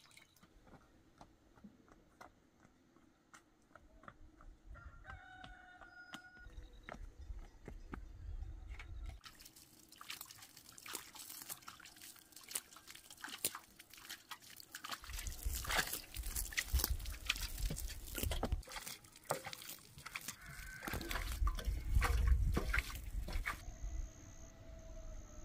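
A chicken calls once, briefly, about five seconds in. After that come many irregular clicks and taps with heavy low thumps, loudest towards the end.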